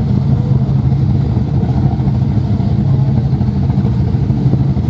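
Fountain powerboat's engines idling loudly and steadily at the dock, the sound sitting low in pitch.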